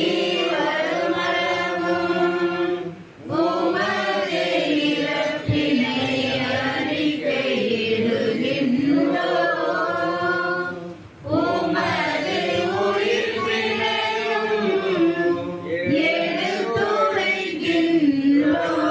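A group of voices singing the memorial acclamation of the Mass, the response to 'the mystery of faith'. It comes in long phrases with short breaks about three and eleven seconds in.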